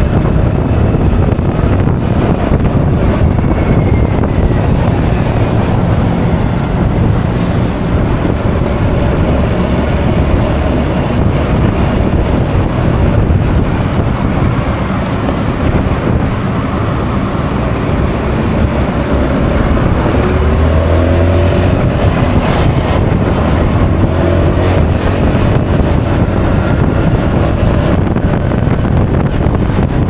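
Wind buffeting an action camera's microphone while riding a Honda Forza 350 scooter, a steady rumble with road and engine noise beneath. A brief wavering tone comes in about two-thirds of the way through.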